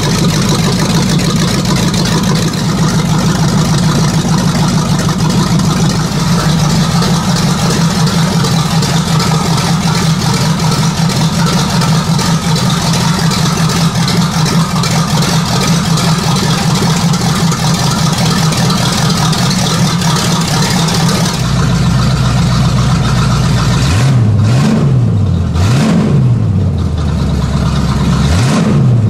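Chevy 350 small-block V8 running at idle with a steady, lumpy note, then revved in several quick blips that rise and fall in the last few seconds.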